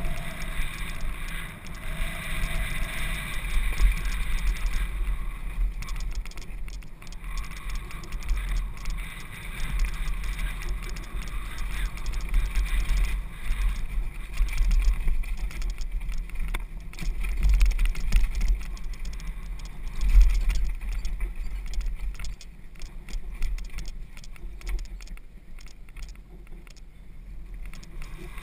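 Downhill mountain bike running down a dirt trail: a low rumble of wind and ground noise that swells and fades, with frequent short rattles and knocks from the bike over bumps.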